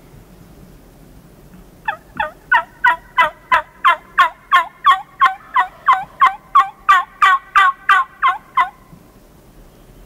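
Turkey yelping: a fast, loud run of about twenty sharp, falling yelps, about three a second, starting about two seconds in and stopping near the end.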